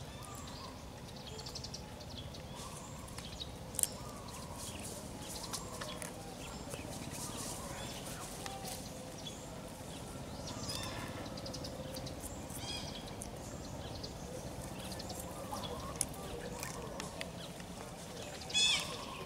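Scattered short, high-pitched animal calls and chirps over a low outdoor background, with one louder call near the end.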